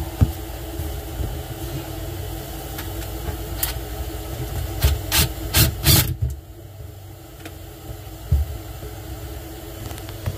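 Water running into a sink drain to test it for leaks, over a steady low hum; a few sharp knocks and clatters about four to six seconds in, after which the rush of water stops.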